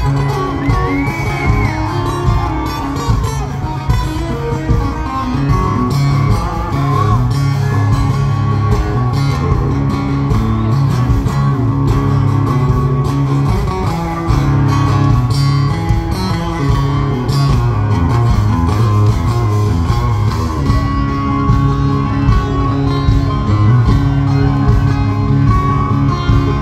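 Live country band playing loud through a concert PA, guitar-led, with a lead guitar line bending over steady bass and drums.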